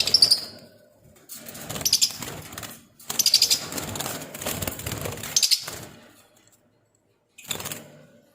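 Pet parrots flapping their wings in a flurry, in several bursts of a few seconds each with short pauses between.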